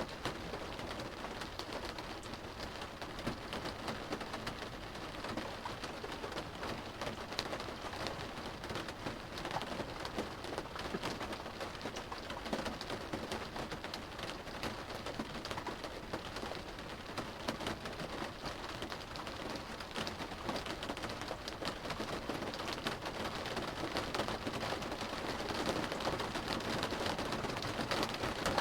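Steady rain drumming on a car's roof and windows, heard from inside the cabin as a dense patter of drops that grows a little louder near the end.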